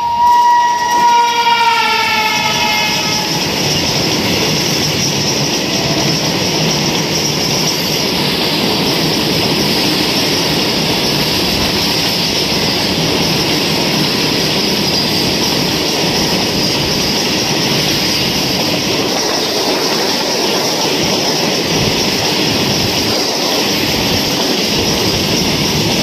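Electric freight locomotive's horn sounding for about three seconds, its pitch sliding slightly down, then the steady rumble and clatter of a long line of freight wagons rolling past on the track.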